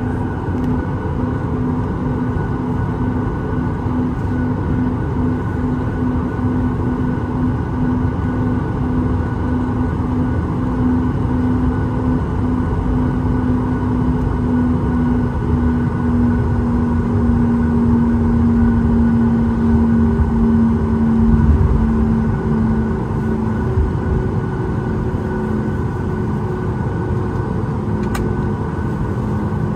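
Boeing 737 MAX 8's CFM LEAP-1B jet engines and rushing air heard from inside the cabin: a steady loud roar with a hum that slowly drops in pitch.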